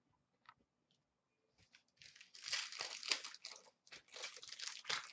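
Wrapper of a trading card pack crinkling as it is torn open, in two spells with a short pause between them.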